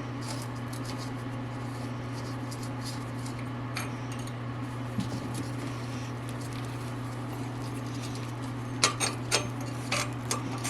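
Light metallic taps and clinks of hand tools and bolts while a dirt bike's skid plate is being unbolted, with a quick cluster of sharper clinks about nine seconds in. A steady low hum runs underneath.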